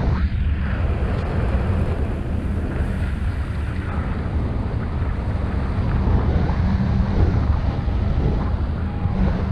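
Airflow buffeting the microphone of a paraglider pilot's head-mounted camera in flight: a steady, loud rush of wind with a deep rumble.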